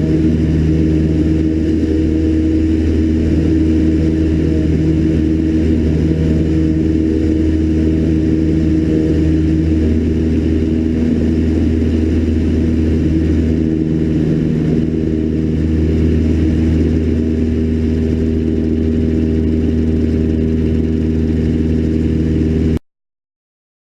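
Cessna 152's four-cylinder Lycoming O-235 engine and propeller droning steadily in cruise, then cutting off suddenly near the end.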